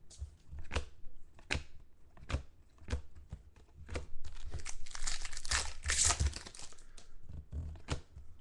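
Thick chromium trading cards being handled and flipped, giving sharp clicks about once a second, with a longer stretch of plastic crinkling from about four to seven seconds in.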